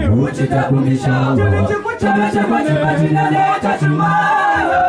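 Vocal group singing unaccompanied in harmony, low voices holding notes beneath higher parts.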